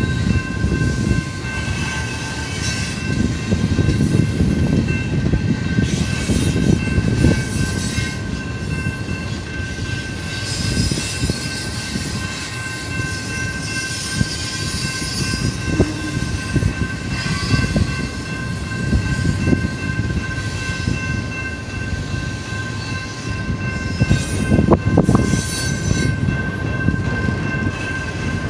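Slow BNSF double-stack container train rolling past: a continuous rumble and clatter from the intermodal well cars' wheels on the rails, over a steady high ringing. A few louder clanks come near the end.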